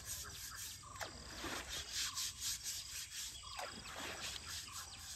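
Outdoor ambience of insects calling in a fast, even pulse, with short bird chirps and rubbing noise against the microphone.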